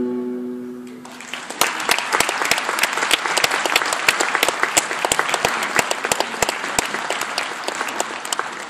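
The skating music dies away in the first second, then the audience applauds, a dense, steady clapping that carries on to the end.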